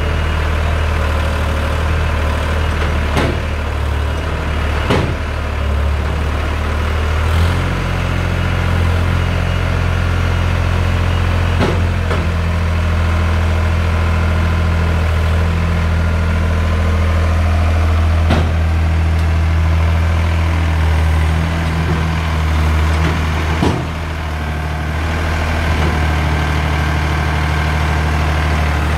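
VST Shakti 9054 DI tractor's diesel engine running steadily at low revs, a deep hum that shifts to a different note about seven seconds in and dips briefly near the end, with a few sharp clicks along the way.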